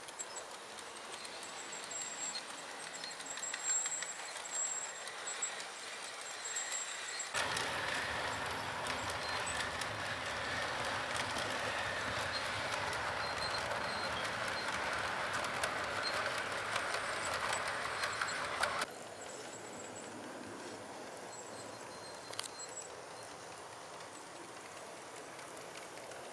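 HO scale model passenger train running on the layout's track: a steady rolling rumble with fine rapid clicking from wheels and motor. The sound is much louder for about eleven seconds in the middle, starting and stopping abruptly.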